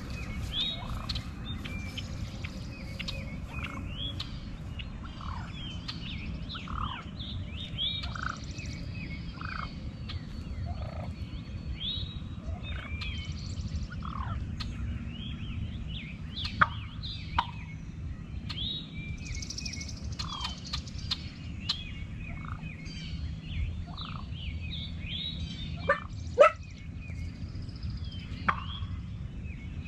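Wild turkeys gobbling and calling among many short songbird chirps, over a steady low background noise. A few sharp clicks stand out in the second half.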